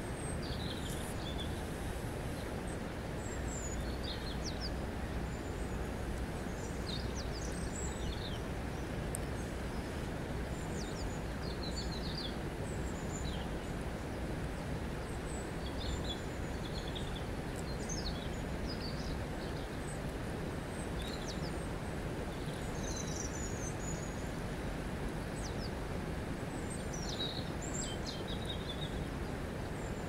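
River water flowing with a steady rushing sound, with birds giving many short, high chirps scattered through it.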